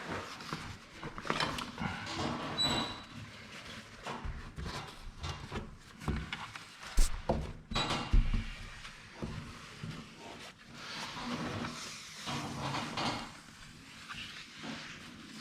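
Work handling sounds: irregular scraping, rustling and small clicks, with two sharp knocks about halfway through.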